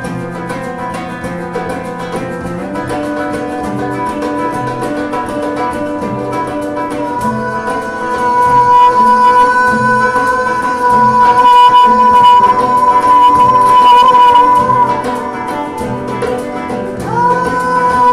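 Acoustic guitar strummed steadily under a man's singing. About a third of the way in the voice rises to a long, loud, high held note lasting several seconds, and near the end it slides up into another held note.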